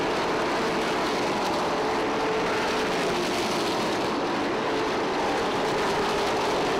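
Pavement late model race cars' V8 engines running at racing speed as a pack goes round the track: steady, dense engine noise with a faint engine note that wavers slightly.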